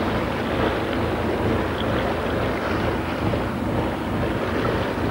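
Steady noise aboard a motor boat under way: a low engine drone and water washing along the hull, with wind buffeting the microphone.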